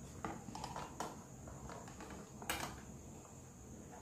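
A few faint, short taps and knocks of handling around the rod and scale over a faint steady high hiss; the clearest tap comes about two and a half seconds in.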